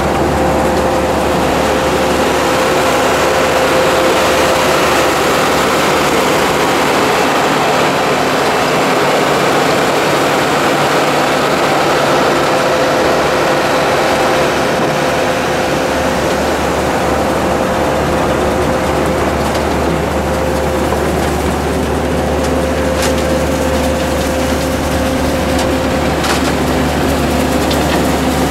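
Tractor and pull-behind side-mount blueberry harvester running steadily while harvesting a row, a continuous engine and machinery hum with a steady held whine over it. A few light clicks come in the second half.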